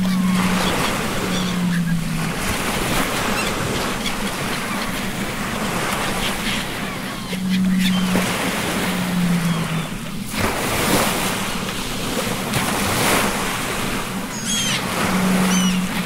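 Rough open-sea waves surging and breaking, with wind, rising and falling in swells. A low two-note tone, the second note lower, recurs three times about eight seconds apart, and a few faint high calls come near the end.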